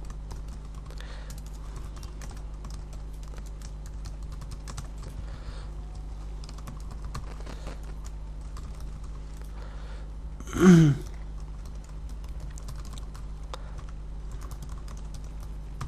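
Typing on a computer keyboard: a run of light key clicks while code is entered. About ten and a half seconds in there is one short murmured voice sound with falling pitch. A steady low electrical hum lies under it all.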